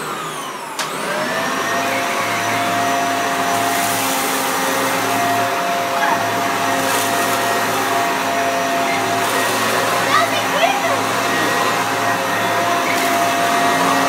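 Hoover Commercial C1409 upright vacuum cleaner, with its 400-watt motor, running steadily as its brush roll vacuums a carpet. The motor's whine rises and settles over about the first second, then holds a constant pitch.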